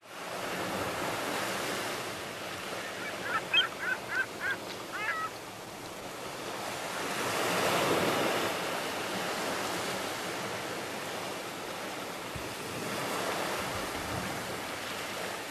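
Gentle surf washing onto a beach, swelling about halfway through and again near the end. A few seconds in, a quick run of about six short bird calls stands out above the waves.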